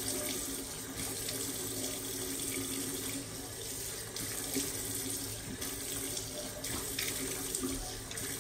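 Bathroom sink tap running steadily into the basin while someone rinses cleansing oil off their face, the water splashing. The flow is briefly broken every second or so as hands dip in and out of the stream.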